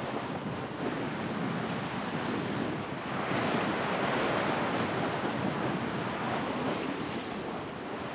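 Strong wind buffeting the microphone over water rushing and splashing along a sailboat's hull as it sails through chop. It grows louder about three seconds in.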